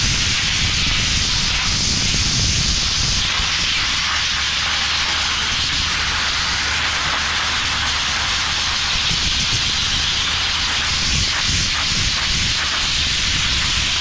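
Sandblasting nozzle blasting abrasive onto the steel tipper body of a dump truck, stripping rust and paint back to bare metal: a loud, steady hiss of compressed air and grit, with a low rumble underneath.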